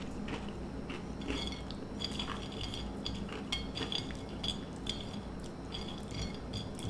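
Small Teddy Grahams crackers being moved around a china plate by hand, clicking and scraping against the porcelain in a scatter of short ticks.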